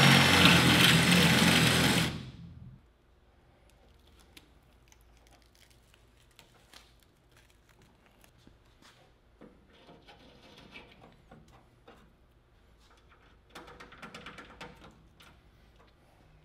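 Cordless drill running at speed, drilling a hole through the aircraft's sheet metal, stopping about two seconds in. After it come faint clicks and handling noises as a bolt is fitted into the new hole.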